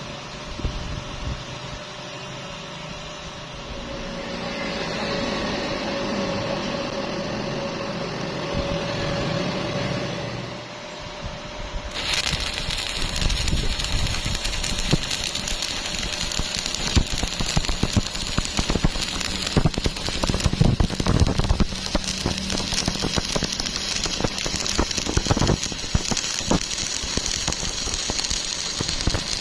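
A steady motor hum for about the first ten seconds, then, about twelve seconds in, an electric welding arc strikes and crackles and sizzles continuously on rusty steel plate.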